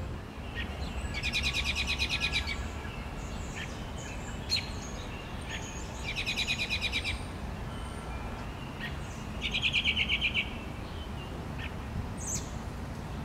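A small songbird gives three short, rapid trills about four seconds apart, the last one lower in pitch, with a few faint single chips in between, over a low steady outdoor rumble.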